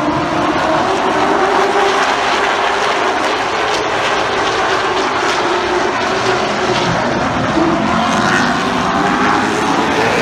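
A field of short-track stock cars running laps together, their engines blending into one steady sound with a pitch that slowly rises and falls.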